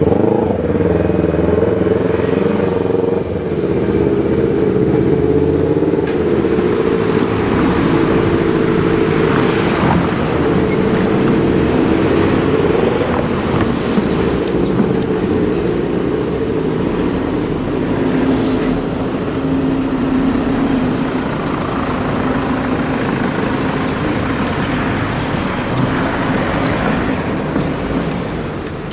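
A vehicle running steadily past or nearby: a continuous hum held at a nearly constant pitch, with a lower tone entering briefly after the middle.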